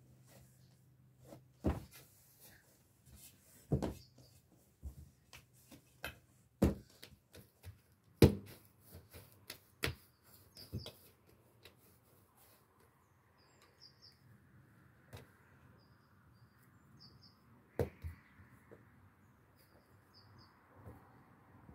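Bread dough being kneaded and pressed on a large metal tray, with irregular knocks and clanks of the tray under the hands. Small birds chirp in the background, more often in the second half.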